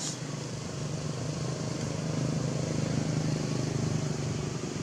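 A motor engine running steadily in the background, a low hum that grows a little louder around the middle.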